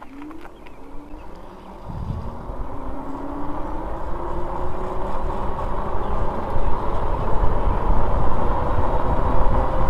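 The 500 W brushless geared hub motor of a fat-tire e-bike whines as the bike accelerates from a standing start, the whine rising steadily in pitch. Wind and tyre rumble build up from about two seconds in and grow louder as the bike speeds up.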